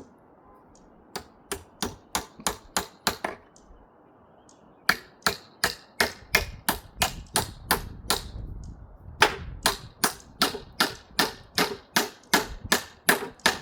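Hammer driving nails into wood: three runs of sharp, steady blows, about three a second, with short pauses between the runs.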